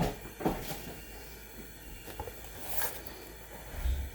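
Kitchen handling sounds during food preparation: a few soft knocks near the start, a brief rustle about three seconds in, and a low thud near the end.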